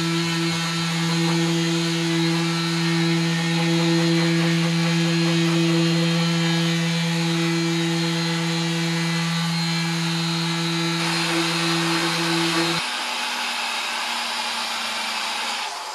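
Electric random orbital sander running steadily with fine sandpaper on an epoxy resin tabletop, a strong motor hum with a hiss of sanding. About 13 seconds in, the sound changes to a rotary polisher buffing the epoxy with a foam pad and polishing paste, a different, steady motor note.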